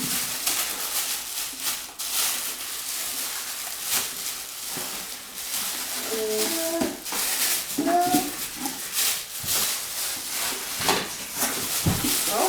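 Plastic packaging crinkling and rustling as vacuum cleaner parts are unwrapped and handled, with small clicks of plastic parts. Two brief high cries break in about six and eight seconds in.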